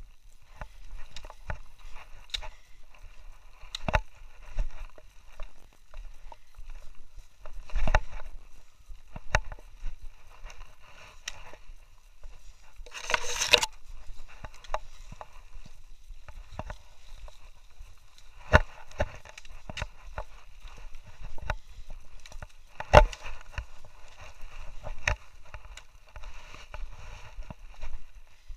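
Footsteps scuffing and knocking on rocks, with handling bumps on the camera, irregular and uneven. About halfway through comes a short burst of rustling, as of brush brushing past.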